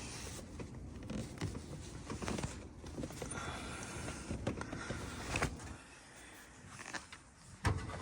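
Scattered small clicks, knocks and rustling of hands handling parts and tools under the bonnet, with one sharper knock near the end.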